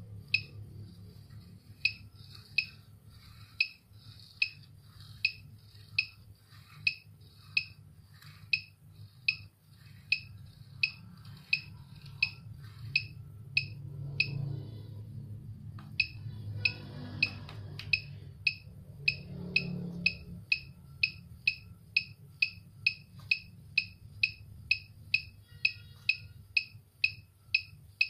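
Digital product counter beeping once per count as a hand passes an object in front of its fibre-optic sensor: short, high electronic pips about one and a half to three a second, quickening toward the end, with a brief pause in the middle. A low steady hum underneath.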